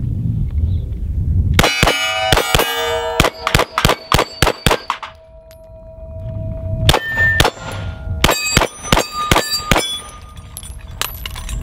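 Glock 34 9mm pistol fired in quick strings, with steel plates clanging and ringing as they are hit. One string starts about two seconds in, there is a pause after about five seconds while a ring dies away, and a second fast string comes near the end.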